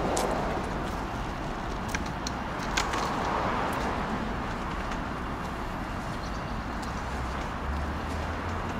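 Steady city street ambience: a hum of road traffic, with a few short sharp clicks in the first three seconds.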